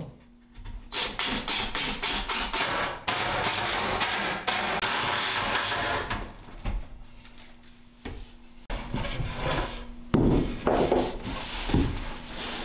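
Cordless drill boring into and driving screws through plywood cabinet panels, in short bursts and then a few seconds of steady drilling. Near the end come several loud wooden knocks as the panels are handled.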